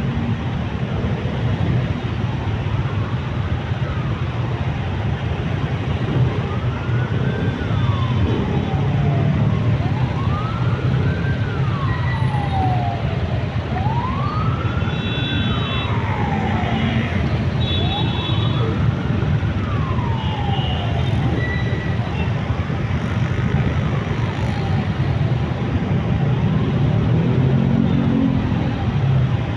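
An emergency-vehicle siren wailing, its pitch slowly rising and falling about every four seconds. It grows louder toward the middle and fades near the end. Underneath runs the steady low rumble of idling motorcycles and traffic.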